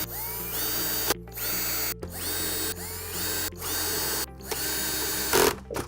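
Power drill-driver driving screws into the plastic body of a Polaris Quattro Sport pool cleaner, in about six short runs, each spinning up with a rising whine, with brief stops between.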